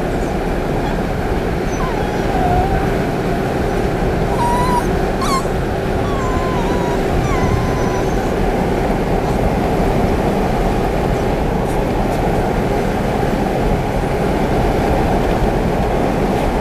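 Beagle puppy whimpering in short, high, wavering whines over steady car road noise inside the cabin; the whines stop about halfway through.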